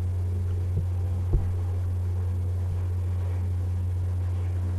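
A steady, fairly loud low hum running under the recording, with a soft low thump just over a second in.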